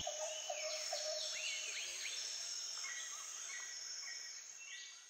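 Night ambience of crickets chirring steadily, with scattered short gliding calls over them, fading out near the end.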